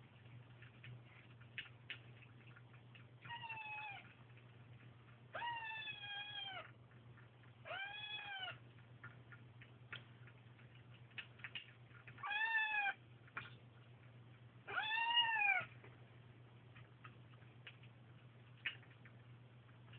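Bombay kittens meowing five times, each call arching up and then down in pitch, the two near the end the loudest. Faint small clicks of eating from the bowls come between the calls.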